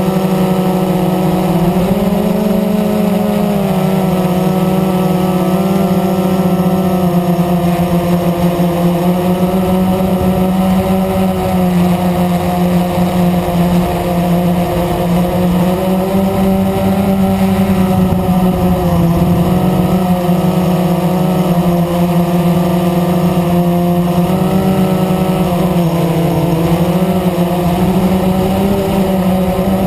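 Blade 350 QX quadcopter's brushless motors and propellers buzzing steadily in flight, heard close up from on board. The pitch drifts slightly up and down as the throttle changes.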